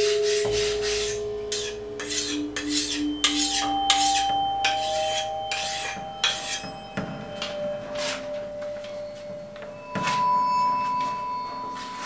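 Steel knife blade stroked back and forth on a whetstone: rasping scrapes, about two to three a second at first, thinning to about one a second in the later part.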